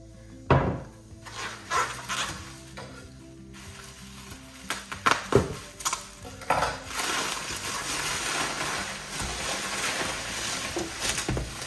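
Plastic packing wrap crinkling and rustling as it is pulled out of a cardboard box, almost continuous through the second half. A few sharp knocks come from a glass mason jar and the box being handled on a wooden table.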